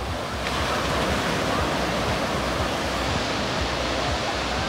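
Steady rush of surf breaking on a beach, with a low, uneven wind rumble on the microphone.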